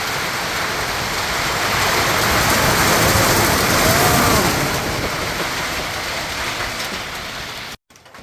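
Heavy rain pouring down in a steady, dense hiss that grows heaviest around the middle. It cuts off abruptly near the end.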